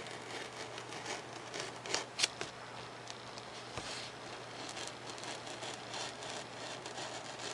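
Razor knife slicing free-hand through a sheet of 3 mm Depron foam: a run of faint scratchy cutting strokes, with two sharper scrapes about two seconds in.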